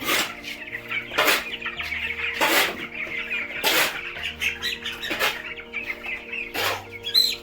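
Young broiler chickens peeping and cheeping, many short high calls overlapping, over background music with a steady beat.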